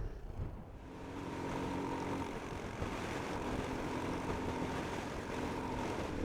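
Motorcycle engine running at steady revs, its note settling in about a second in and then holding even.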